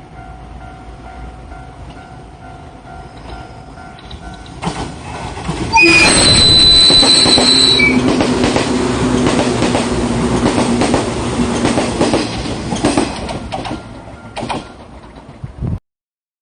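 A JNR 185-series electric train approaches and passes close by. It sounds its horn for about two seconds, about six seconds in, and then runs past with loud wheel noise and rapid clicks over the rail joints. A level-crossing bell rings faintly before the train arrives. The sound cuts off suddenly near the end.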